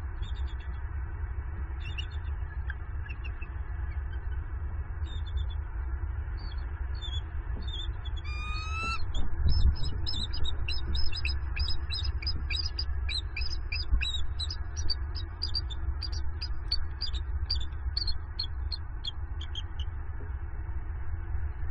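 Bald eagles calling: a few short high chirps, then a rising call about eight seconds in, then a long rapid series of sharp, high chittering notes lasting about ten seconds. This is the kind of call a male gives around mating. A steady low rumble runs underneath.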